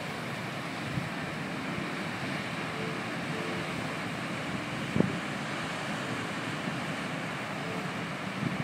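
Steady rushing of wind and churning water as the cruise ship Celebrity Constellation's bow moves past close by, the water stirred up at its bow. A single short knock about five seconds in.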